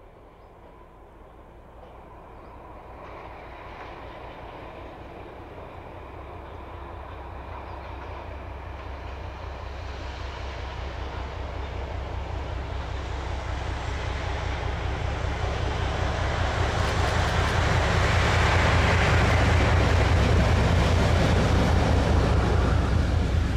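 ČD class 749 'Bardotka' diesel locomotive hauling a passenger train, approaching and passing: the engine and running noise grow steadily louder for about eighteen seconds to a loud, low, pulsing rumble as the locomotive and its coaches go by.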